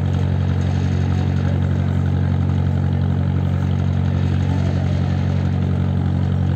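An engine running steadily, a loud, even low drone that holds the same pitch throughout.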